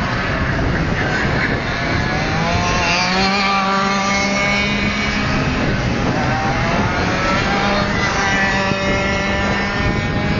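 Two-stroke engine of a 125cc six-speed racing kart running on a circuit; its note climbs as it accelerates about three seconds in and again around seven to eight seconds, holding steady in between.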